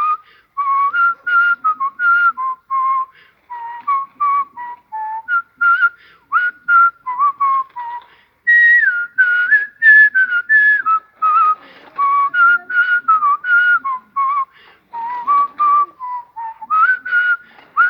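A man whistling a tune by mouth, in quick short notes with occasional slides from one pitch to the next.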